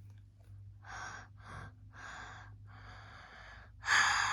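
A person breathing out hard through the mouth in a run of short, breathy puffs, then a longer, louder one near the end.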